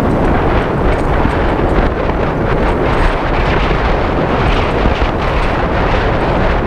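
Wind rushing over the microphone of a camera riding on a moving motorbike taxi, a loud steady roar, with the small motorbike's engine and road noise beneath it.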